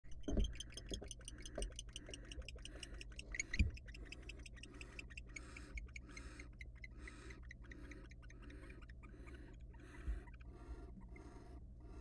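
Barn owls calling in a nest box: a fast run of clicking calls, about seven a second, then rasping calls repeated about twice a second. A few low thumps sound against the box, the loudest about three and a half seconds in.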